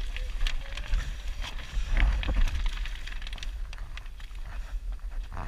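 Rustling, scraping and crackling handling noise with many small scattered knocks over a low rumble: a body-worn action camera brushing against clothing, mud and grass as its wearer crawls out of an obstacle tunnel.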